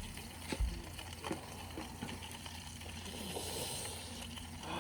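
Faint sizzling of trout frying in butter in a pan, over a steady low hum, with a few light knocks.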